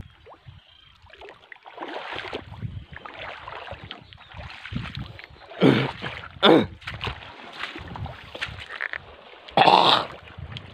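Footsteps splashing and sloshing through shallow tide-pool water over a rocky reef flat, an uneven run of wet steps with a few louder splashes about halfway through and near the end.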